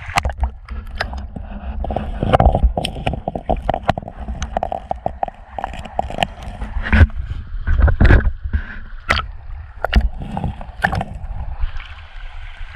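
River rocks clacking and knocking together in irregular sharp strikes, over a low rumble of handling noise.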